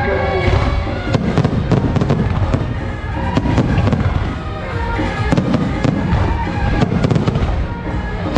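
Rapid, continuous firecracker crackling played through an electronic firecracker speaker system, mixed with loud music.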